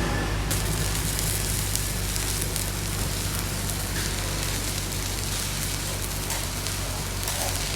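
Electric arc welding: the arc strikes about half a second in and then crackles and sizzles steadily, over a constant low hum.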